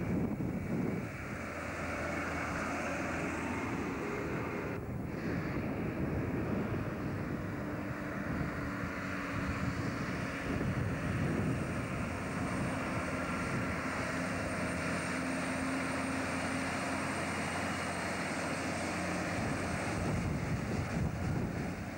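Heavy log truck's diesel engine droning steadily as it comes round the bend and passes close near the end, with wind buffeting the camcorder microphone.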